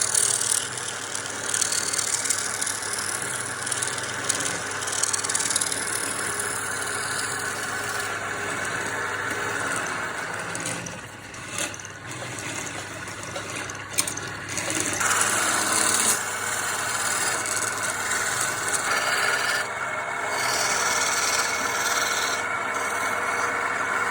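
Wood lathe running while the spinning wood is worked, a steady scraping and rasping that changes as the work goes on, with a sharp click about halfway through.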